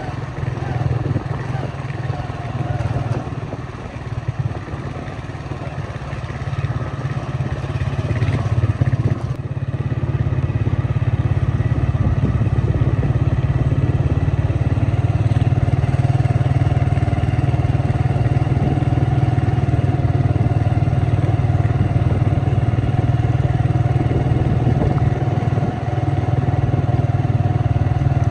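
A vehicle running steadily, a constant low engine and road hum that grows louder about ten seconds in and then holds level.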